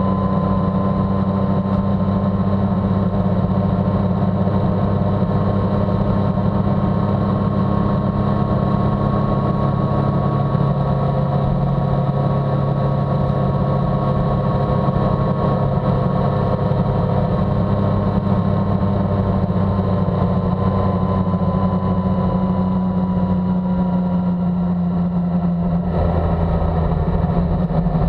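Motorcycle engine running at a steady cruising speed along with road noise. The engine note eases and drops slightly near the end as the bike slows.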